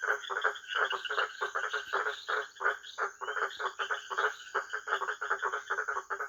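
Frogs croaking in a rapid, continuous run of short pulses, about five or six a second, over a faint steady high-pitched hum.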